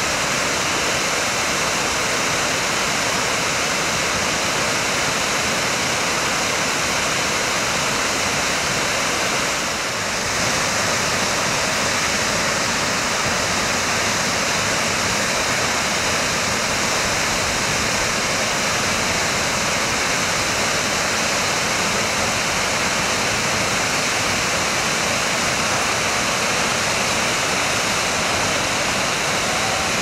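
Narada Falls pouring down its rock face: a steady, unbroken rush of falling water.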